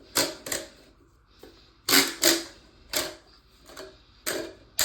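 Hard plastic clicks and clacks, about eight in under five seconds, from a new Fluidmaster toilet fill valve being handled as its float-height clip is pushed back down to lock the adjustable rod.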